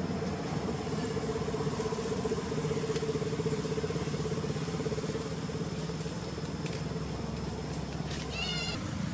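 A steady engine drone, louder through the middle, runs underneath. Near the end a macaque gives one short, high, wavering squeal.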